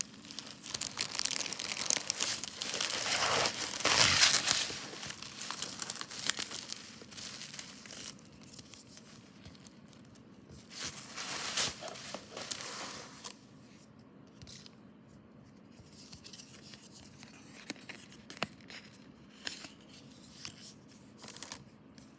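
Packaging of an LP record being unwrapped, crinkling and tearing. This is loudest for the first several seconds and again briefly midway, then gives way to quieter handling with small clicks and taps.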